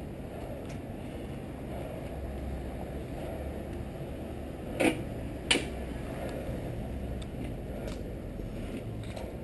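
Loaded commuter bicycle rolling slowly over pavement: a low steady rumble, with two sharp knocks about five seconds in, under a second apart.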